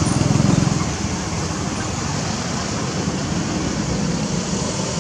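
Steady outdoor background noise: an even hiss over a low rumble that swells for about the first second, with no clear animal calls.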